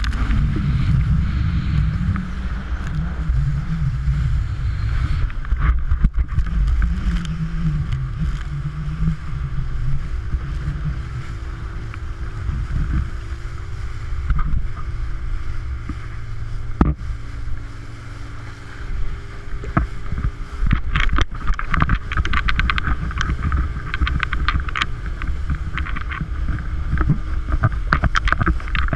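Wind on the action camera and water rushing under a board towed at speed, over the steady drone of the tow boat's engine. In the last third, spray crackles and spatters against the camera.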